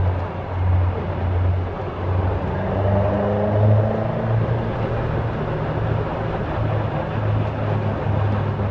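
Caterham Super Seven 1600 engine and exhaust running steadily: a continuous low drone that throbs slightly at first and holds an even pitch.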